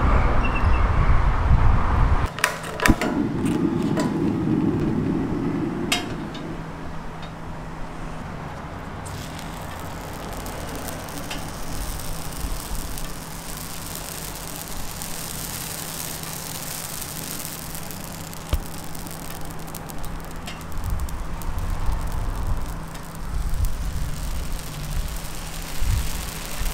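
Crepe batter piped in thin lines onto a hot round crepe griddle, sizzling as a steady hiss from about a third of the way in, over a low steady hum. The first couple of seconds hold a low rumble and a few clicks.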